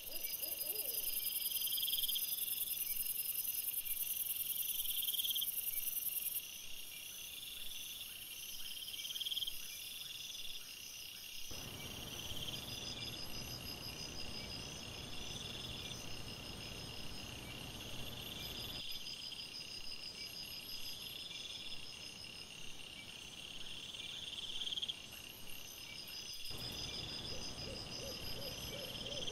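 Night insects chirping in a steady chorus, short repeating pulses at several high pitches, with a high hiss over the first several seconds.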